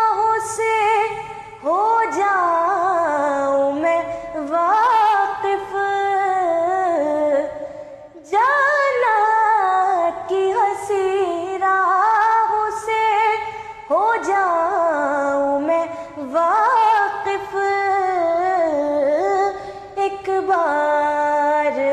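A woman singing a devotional Urdu manqabat, in drawn-out phrases of about two seconds each whose pitch slides and wavers.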